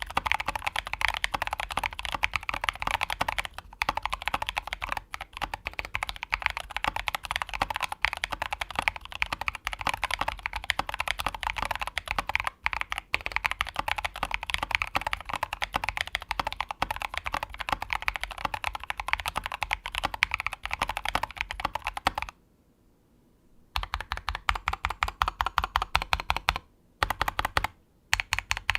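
Mechanical keyboard with tactile (brown-type) switches typed on quickly and continuously, a rapid run of keystroke clacks, pausing for a second or two near the end.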